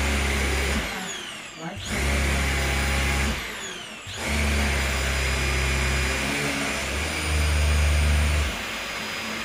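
Hoover H-Upright 500 Plus upright vacuum cleaner's motor switched on and off twice, each time winding down with a falling whine and starting up again with a rising one, then left running. Near the end the low hum grows louder for about a second and then drops back, as the brush roll is switched on and off.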